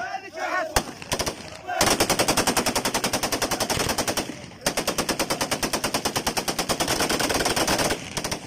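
Automatic gunfire in two long, rapid, continuous bursts with a short break about four seconds in, with shouting voices just before the firing starts.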